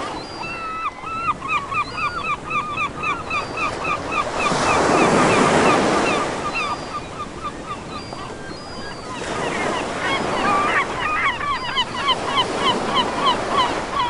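Baltic Sea waves breaking on the shore, swelling loudest about five seconds in and again about ten seconds in. Over the surf, gulls call in long runs of short, sharp notes, about three or four a second.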